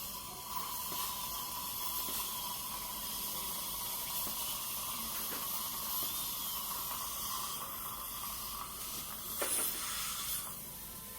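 Steady hiss of dental treatment equipment during a tooth repair, with a faint steady tone underneath that fades near the end.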